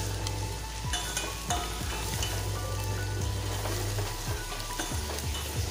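Chopped onions sizzling in hot oil in a small stainless-steel pan, being fried toward golden brown. A spatula stirs them, clicking and scraping against the pan now and then.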